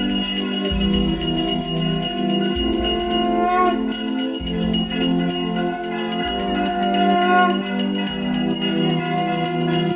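Music with fast, even jingling bells over sustained tones, with a low pulse that comes and goes.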